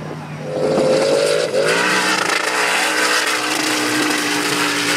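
Off-road racing buggy's engine running at high revs. It wavers for the first second and a half, then holds a steady high pitch.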